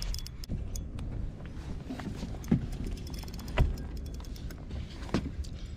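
Low wind rumble and handling noise on the microphone, with three sharp knocks spread through the middle and end.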